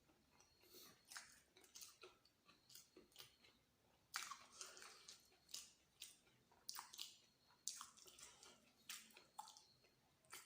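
Close-up chewing of egg masala and luchi: irregular wet smacks and clicks of the mouth, one or two a second, getting louder about four seconds in.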